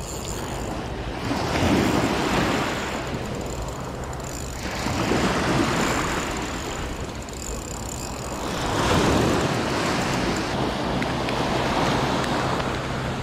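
Small waves breaking and washing up a sandy beach, surging four times a few seconds apart.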